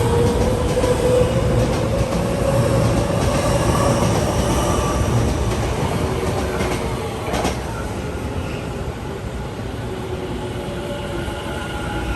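Electric commuter train running on the rails, a motor whine rising slowly in pitch over the first few seconds. There is a sharp click about seven seconds in, and the train is quieter after that.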